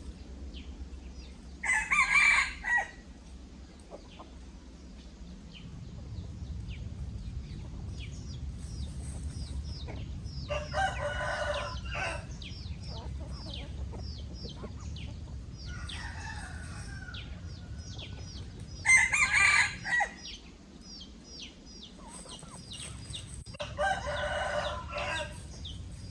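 Chickens calling loudly four times, each call lasting a second or two, over constant high peeping of chicks.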